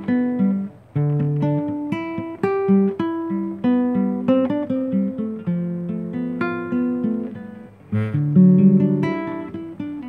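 Nylon-string classical guitar played fingerstyle: a melody of single plucked notes over bass notes, each note ringing and fading. About eight seconds in, a louder strummed chord.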